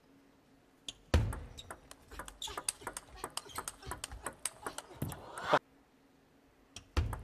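Table tennis rally: the celluloid-type plastic ball clicking back and forth off bats and table in quick succession for about four seconds, with crowd noise swelling near the end and cutting off suddenly.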